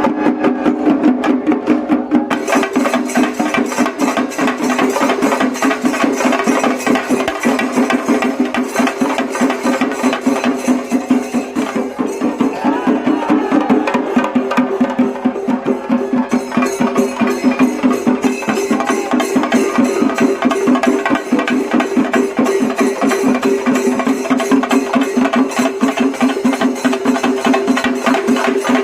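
Music with a fast, steady percussion beat of rapid clacking strokes over held tones.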